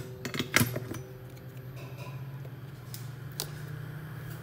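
A quick cluster of sharp clicks and taps in the first second and one more click about three seconds in, over a steady low hum.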